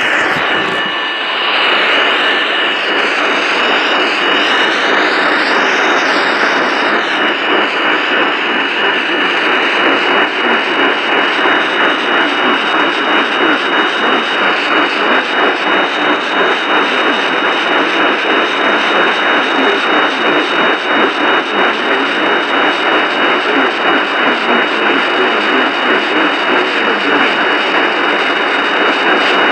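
Radio receiver static: a steady hiss with a thin steady whistle of interference through it and, in the first several seconds, faint wavering whistles above it, with no broadcast voice or tones coming through.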